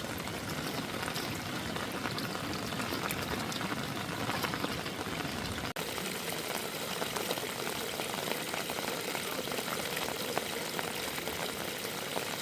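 Heavy rain pattering and hissing steadily on surfaces, with a dense crackle of drops; the sound cuts out for an instant about halfway through.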